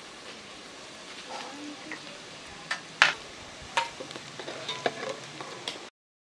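Red masala and turmeric frying in hot oil in a metal pot, sizzling steadily while a spoon stirs and scrapes, clacking against the pot, with one sharp knock about three seconds in. The sound cuts off abruptly near the end.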